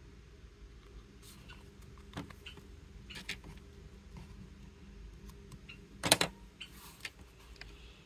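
Hands handling paper strips woven across a painted canvas: scattered light taps and clicks as the strips are pressed down, with one louder, brief noise about six seconds in.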